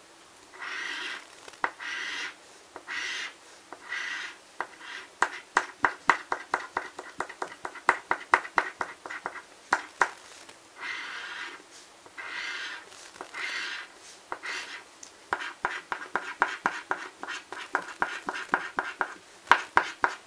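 A coin scratching the coating off a paper scratch-off lottery ticket. Separate scraping strokes of about half a second alternate with stretches of quick short strokes that make a run of sharp ticks.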